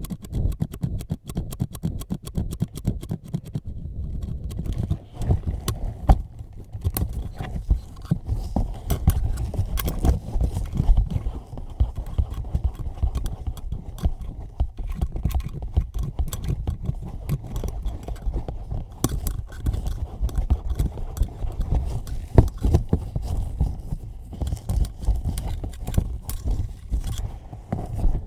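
Hands and tools working directly on a microphone: dense, irregular tapping, rubbing and scratching with a heavy, boomy body, picked up right at the mic.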